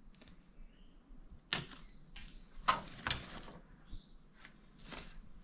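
A few sharp knocks and clicks as small objects are handled, three louder ones near the middle.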